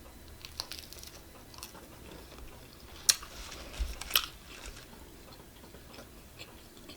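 A person chewing and biting into pizza, with a few sharp crunchy clicks, the loudest about three and four seconds in.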